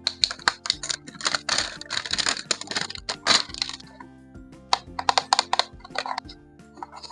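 Toy packaging being handled and opened, with crinkling and clicking of plastic in two bouts, the second starting about two-thirds of the way through. Quiet background music with held tones plays underneath.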